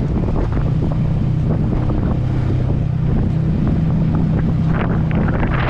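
Yamaha XSR155's 155 cc single-cylinder engine running at a steady speed under way, heard from on the bike, with wind buffeting the microphone. The wind noise picks up near the end.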